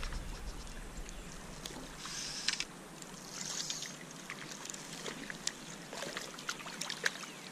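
A hooked small wild brown trout splashing at the surface as it is played in and netted, in short bursts of splashing over the soft hiss of a shallow stream.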